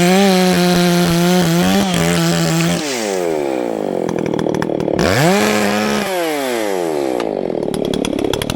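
Chainsaw running at high speed, then the throttle is let off and its pitch falls away. It is revved up again about five seconds in and winds down once more.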